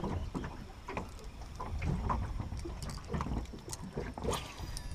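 River water lapping against the hull of a small fishing boat, with wind rumbling on the microphone and a few light, scattered clicks.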